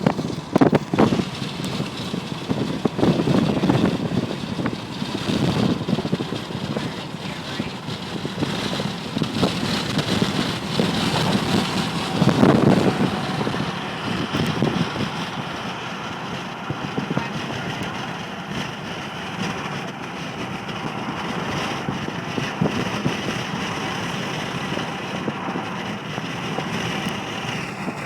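Cabin noise of a moving car: steady road and engine noise, with several louder swells in the first half before it settles to an even level.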